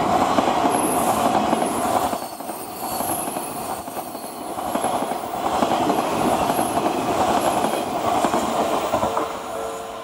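Odakyu 5000 series electric commuter train running past at close range: a loud, steady rumble of wheels on rail with faint high squeals, easing briefly a couple of seconds in and dropping off near the end.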